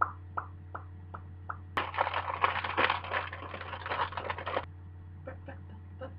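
Close handling noise: a few light taps, then rustling and scraping that starts abruptly about two seconds in and stops sharply nearly three seconds later, followed by more scattered taps, over a steady low electrical hum.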